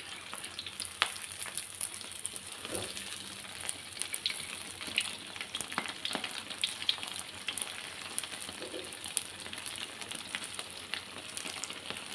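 Pieces of ulen, pounded glutinous rice cake, sizzling and crackling steadily as they deep-fry in hot oil in a wok, with many small sharp pops. A metal spatula now and then nudges and scrapes the pieces in the pan.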